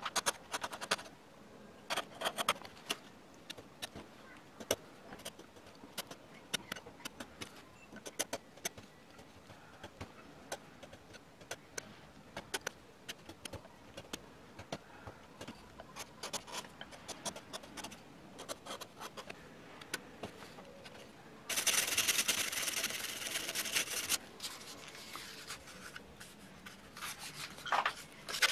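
Hand chisel paring wood: a run of short, crisp cuts, scrapes and clicks as chips are taken off a carved wooden relief. About two-thirds of the way in comes a few seconds of louder, steady rubbing.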